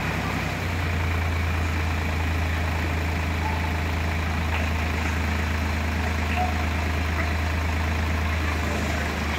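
Eicher 5660 tractor engine running steadily as it drives the hydraulic jack that tips the trailer bed up to dump its load of soil, its note shifting slightly about half a second in.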